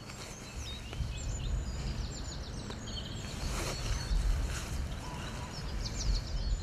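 Birds chirping and singing in short, quick phrases over a low, shifting rumble, with a brief rush of noise about three and a half seconds in.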